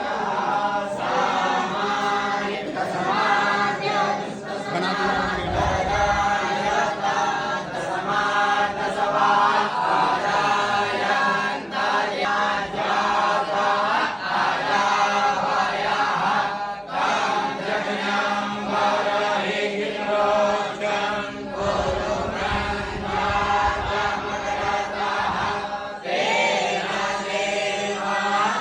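A group of young Brahmin students (batuks) chanting Sanskrit mantras together in unison, a steady, continuous recitation of many voices.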